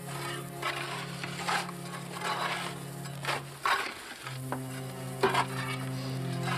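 Shovels scraping and cutting into loose earth, about six separate strokes, over soft background music holding sustained chords.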